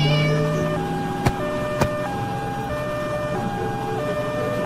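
A two-tone hi-lo emergency-vehicle siren, switching back and forth between a higher and a lower note about every 0.7 seconds. A low hum fades out about a second in, and two sharp clicks come half a second apart.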